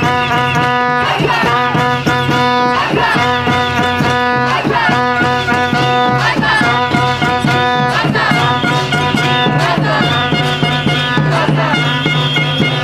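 Loud music: a steady held drone under a shifting melody, with a running beat of percussion.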